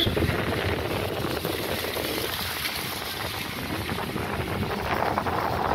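Steady noise of a moving vehicle.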